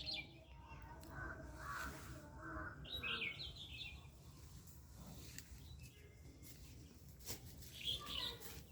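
Birds chirping in short bursts over a quiet rural background, with clusters about three seconds in and again near the end.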